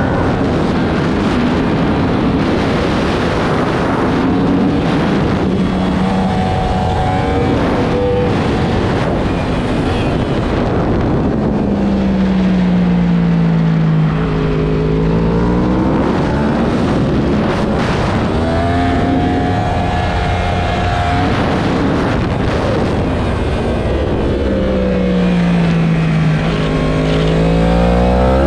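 Sport bike engine at race pace heard from onboard, its pitch climbing as it accelerates through the gears and sinking under braking into corners, twice dropping low and then rising again. A constant rush of wind noise runs underneath.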